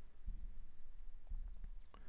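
Quiet room tone with a faint low hum and a few faint clicks, the clearest near the end.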